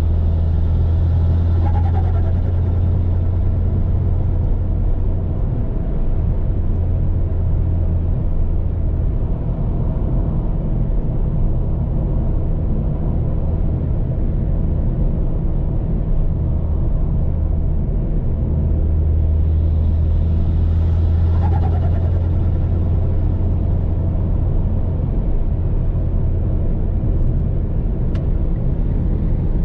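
Mitsubishi Lancer Ralliart's turbocharged four-cylinder engine drones steadily at highway cruise, heard from inside the cabin along with road noise. It swells twice, about two seconds in and about twenty seconds in, each time with a short falling whine.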